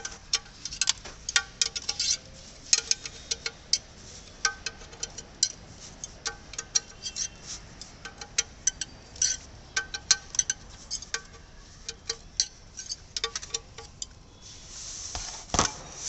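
Ratchet wrench clicking and clinking against metal in irregular bursts as the bolts of an automatic transmission oil pan are tightened. Each click rings briefly, and a louder rustling noise comes near the end.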